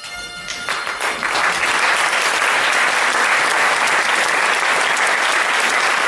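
Theatre audience applauding: the clapping swells over about the first second, then holds as steady, dense applause.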